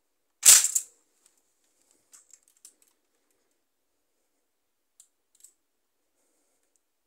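Plastic Lego bricks of a brick-built belt-fed machine gun model clattering as it is worked by hand: one loud, sharp rattle about half a second in, then a few faint clicks.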